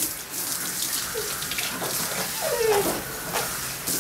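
Hose spray nozzle running, water hissing steadily as it sprays onto a dog standing in a bathtub. A brief falling whine cuts in about three-quarters of the way through.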